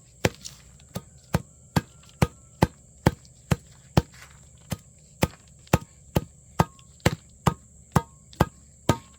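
Steady rhythmic chopping with a blade, about two strokes a second, each stroke a sharp knock, some with a brief metallic ring, and one short pause about four seconds in. A faint steady high-pitched hum runs behind it.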